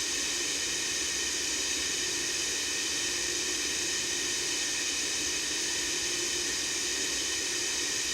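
White noise: a steady, unchanging hiss, brightest at the high end.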